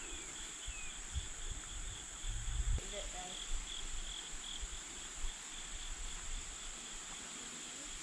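Steady, high-pitched insect chorus, with a second, lower trill pulsing on and off. A brief low rumble comes about two and a half seconds in.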